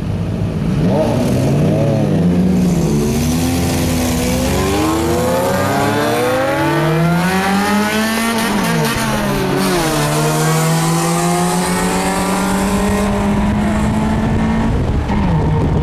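Several vehicle engines revving, their pitches rising and falling over one another. In the last few seconds one engine holds a high steady pitch and then drops off.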